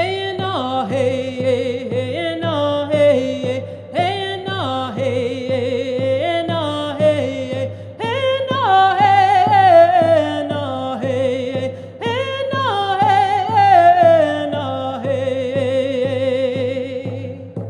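A woman singing a Navajo song in long held phrases, four in a row, each starting high and stepping down, over a steady drum beat of about three strokes a second.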